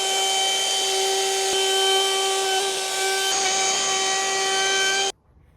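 Electric wood router running steadily at high speed with a constant high-pitched whine, cutting off suddenly about five seconds in.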